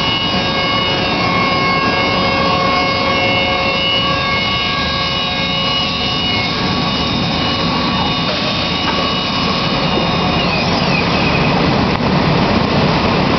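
Homag BAZ CNC machining centre running as it edgebands a circular panel: a loud, steady machine noise with several high whining tones that fade out about halfway through, and a short gliding whine about ten seconds in.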